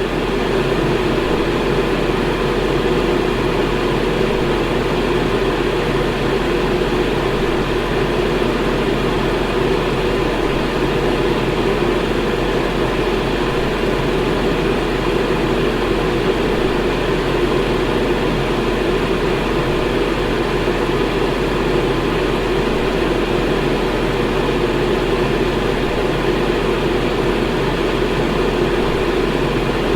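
Electric fan running steadily: an even rushing noise, fullest in the lower middle range, over a steady low hum.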